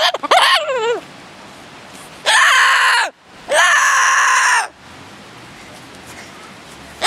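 Umbrella cockatoo calling: a few short calls in the first second, then two long, loud screeches about two and three and a half seconds in, each lasting around a second.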